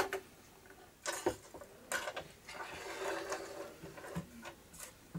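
Small irregular clicks, taps and scrapes from hands and a small tool fitting the positive and negative leads to a circuit board's terminals.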